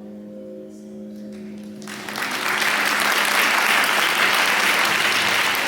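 A held closing chord of recorded show music, then about two seconds in an audience breaks into loud, sustained applause.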